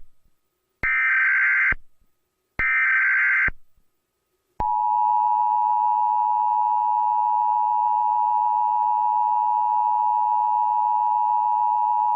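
Emergency Alert System tones: the end of one digital header burst, then two more raspy data bursts of about a second each with short gaps between. About four and a half seconds in, the steady two-tone EAS attention signal starts and holds.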